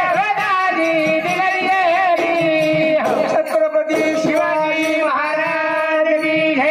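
A man sings a Marathi powada (folk ballad) in long held notes that bend at the ends of phrases, over a steady drum beat.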